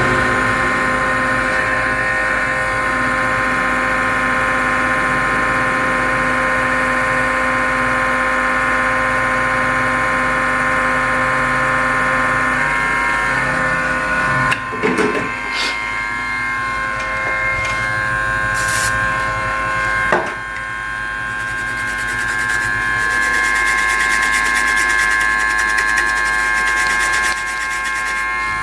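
A small electric motor runs steadily with a whine while the area around a component on a laptop motherboard is cleaned, with rubbing and scraping. There are a few sharp knocks about halfway through, and a brighter hissing stretch near the end.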